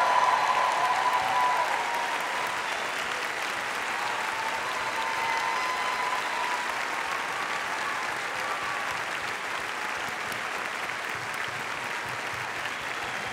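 A large audience applauding in a dense, steady wash of clapping, with a few voices calling out over it at first; it is loudest at the start and eases off a little.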